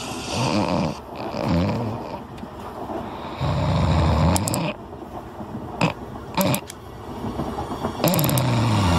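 A sleeping cartoon animal snoring: several slow, low snores, with a few short sharp clicks between about four and seven seconds in.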